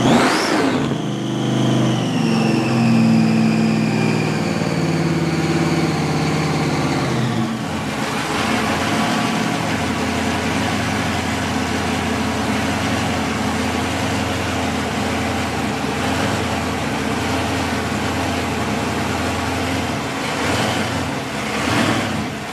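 Supercharged V8 with a polished belt-driven Roots-type blower, revved at the start and falling back over several seconds with a high whine that drops with the revs, then idling with a steady, lumpy beat. Two short throttle blips come near the end.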